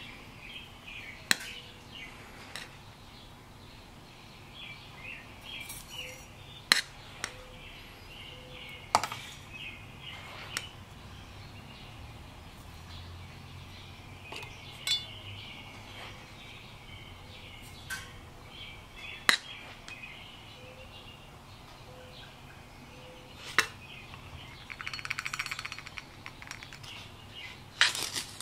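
A metal spoon clinks sharply against a coffee can and a metal percolator basket every few seconds as ground coffee is scooped into the basket. Near the end there is a brief rustling scrape.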